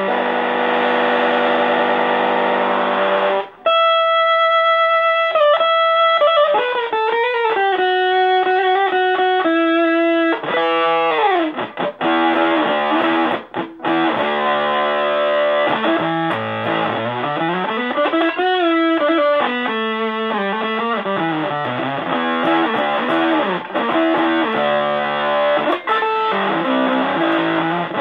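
Electric guitar (Fender Stratocaster) played through a One Knob Fuzz pedal into a blackface Fender Champ tube amp: a fuzzed chord held for the first few seconds, then single-note lead lines with string bends and slides. The fuzz is set above unity volume.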